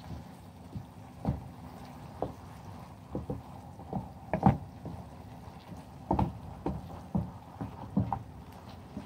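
Wooden spatula stirring raw keema with onions and spices in a non-stick frying pan: irregular scraping and knocking strokes against the pan, the loudest about four and a half seconds in.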